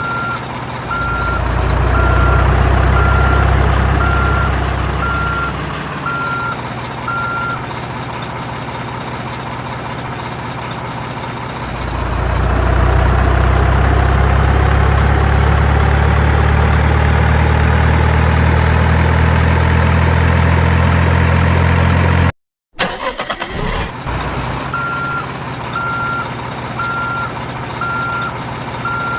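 A truck's reversing beeper beeping at about two beeps a second, joined by a heavy truck engine running in two loud stretches with its pitch slowly rising. The beeping stops for a while in the middle and comes back near the end, after a brief cut-out.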